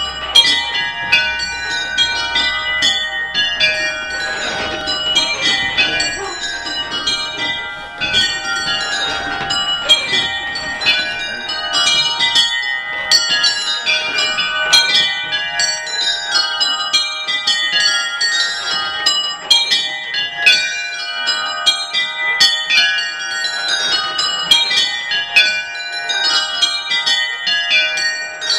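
Twelve small bells of a mini-ring rung full-circle in rounds. Each bell strikes in turn down the scale from treble to tenor in one row after another, and the striking is only roughly even.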